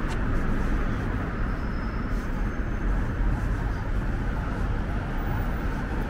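Busy city street ambience: a steady rumble of road traffic from passing cars and buses.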